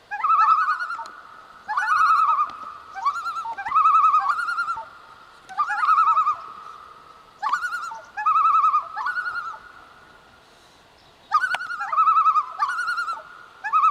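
Common loons giving tremolo calls: wavering, laughing calls in about a second-long bursts, repeated several times with a short break a little after the middle.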